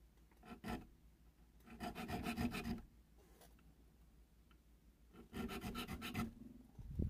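Small triangular needle file cutting notches into the spine of metal knife liners clamped in a vise. The filing comes in short bursts of rapid strokes, the longest about a second, with pauses of a few seconds between them as each notch is cut at a scribe line.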